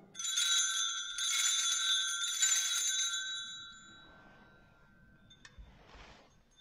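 Altar bell rung three times about a second apart, its ringing tones fading away over the next few seconds, marking the elevation of the host and chalice at the close of the eucharistic prayer. A faint click near the end.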